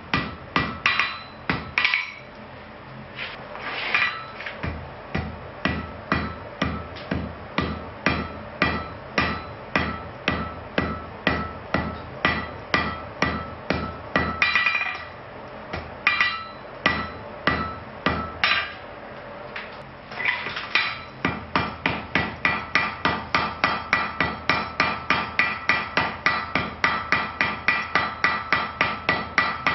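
Hand hammer striking a white-hot iron bloom from a bloomery smelt, held in tongs on an anvil, to compact it; the bloom is a poor one by the smith's own judgement. Steady ringing blows, about two a second with a few short pauses, quickening to about three a second in the last third.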